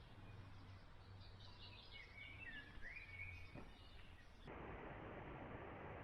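Faint birdsong: a run of quick chirps and short whistled phrases in the middle, over quiet outdoor ambience. About three-quarters through, the background changes abruptly to a steady hiss.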